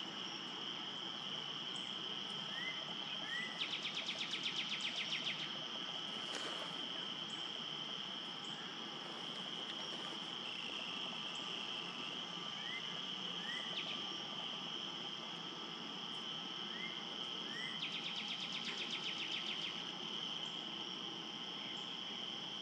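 Steady high-pitched trilling of insects, with a louder rapid pulsing trill about four seconds in and again near the end, and faint short rising chirps now and then.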